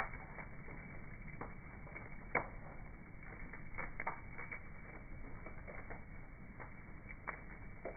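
Bonfire crackling: irregular snaps and pops of burning wood over a low hiss, the sharpest pop a little over two seconds in. The sound is slowed down with the slow-motion footage, so it is dull and muffled.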